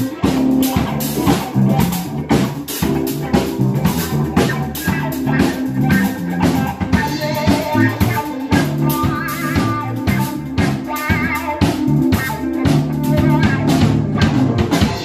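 A band playing a funk groove on drum kit, bass and guitar: a busy, steady drum beat under a moving bass line, with guitar figures over the top.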